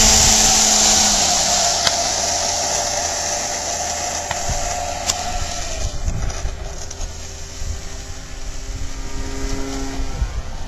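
90 mm electric ducted fan of an RC sport jet running at high power: a steady whine over a loud rush of air that gradually fades as the jet moves away down the runway.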